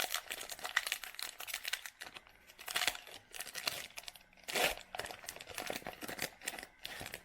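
Wrapper of a basketball card pack being torn open and crinkled by hand: irregular crackling throughout, with two louder rips about three and four and a half seconds in.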